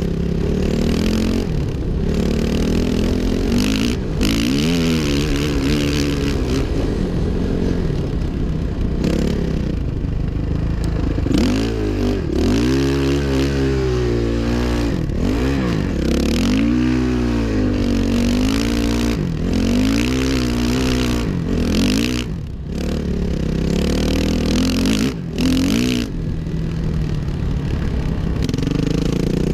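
2005 Suzuki RM-Z 450's single-cylinder four-stroke engine being ridden, revving up and down over and over as the throttle is opened and closed, with brief drops in level near the end.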